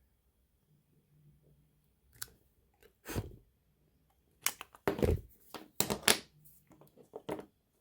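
Cutters snipping and stripping the plastic insulation of a power cord's wires: a run of short crunching snips, sparse at first and coming thicker and louder after the middle.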